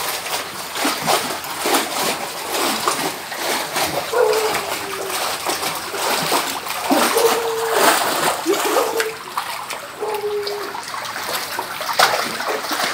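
Pool water splashing and lapping as a baby in a swim ring paddles with her arms. Around the middle come four short, steady-pitched voice sounds from the baby.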